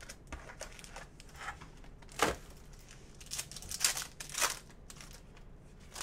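Foil wrapper of a Panini Select basketball card pack being torn open and crinkled: a series of short rips and rustles, the sharpest about two seconds in.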